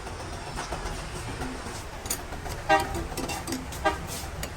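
Two short vehicle-horn toots about a second apart over a steady low rumble.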